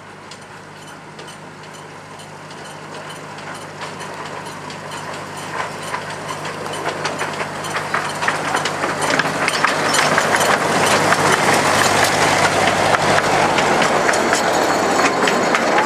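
Narrow-gauge miniature railway train approaching and passing close by: the wheels clatter and click over the track while the wooden carriages rattle. It grows steadily louder and is loudest from about ten seconds in as the loaded carriages go past.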